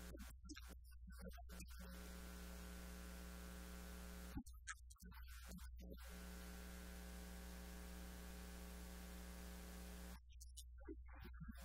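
Faint, steady electrical mains hum with hiss on the recording. It cuts out briefly a few times, with a single click about four seconds in.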